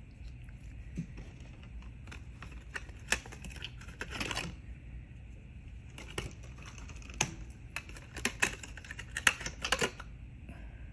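Nail polish bottles being handled and set down on a table: a scatter of light clicks and taps, with a brief rustle about four seconds in and a quicker run of taps near the end.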